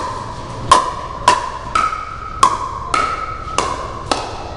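Pickleball rally: paddles hitting a hollow plastic ball back and forth, a sharp pop with a short ringing tone each time, about seven hits in quick, even succession.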